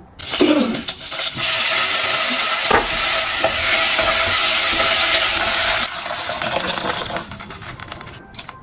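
Stir-fry ingredients hitting hot oil in a pan and sizzling loudly, starting suddenly, then dying down over the last few seconds.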